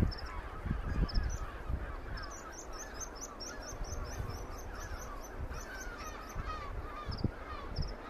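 Birds calling: short calls repeated over and over, with a quick run of high chirps from about two to five seconds in, and a few low knocks.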